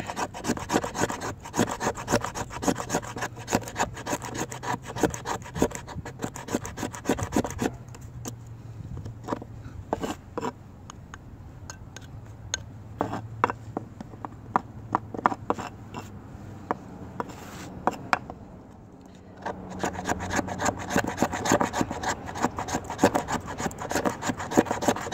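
Knife blade scraping fine shavings and curls off a resin-rich fatwood pine knot in quick rasping strokes. For several seconds in the middle the strokes thin out to single scrapes, then turn rapid again near the end.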